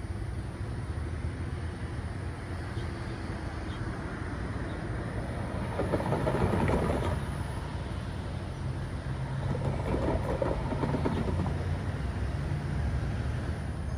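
Road vehicles driving across the railroad grade crossing: a pickup truck passes about six seconds in and another car swells past around ten seconds in, over a steady low hum.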